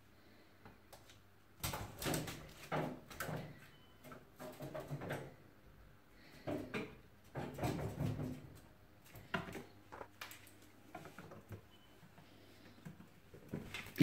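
A grey squirrel scrabbling about on a kitchen worktop and the top of a microwave among plastic bags: irregular knocks, scratches and rustles, in clusters.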